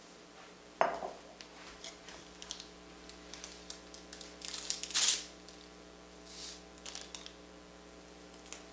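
Small kitchen handling sounds: a ceramic mug clunks down on the stone counter about a second in, then a paper tea-bag wrapper rustles and tears, loudest about five seconds in, with light clicks and crinkles around it over a faint steady hum.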